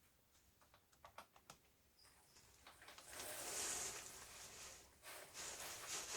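Hands working on a laptop: scattered small clicks and taps, then two stretches of rustling or scraping, the first about three seconds in and the second near the end.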